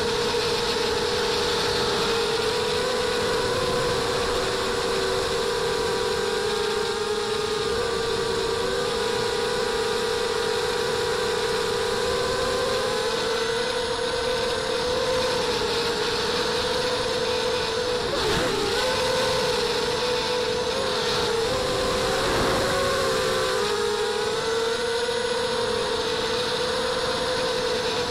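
Small racing quadcopter's brushless motors (RCTimer 2300kV, 5x4 props) running at flight throttle, heard close up from the onboard camera: a steady high motor-and-prop whine over a hiss of wind and prop wash. The whine dips and wavers briefly twice in the second half as the throttle changes.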